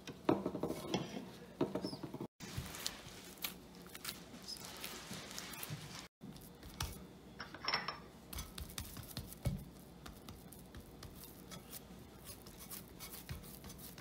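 Hands kneading a stiff flour-and-milk dough in a terracotta bowl: irregular crumbly rustling and squishing with scattered light taps against the bowl, cutting out briefly twice.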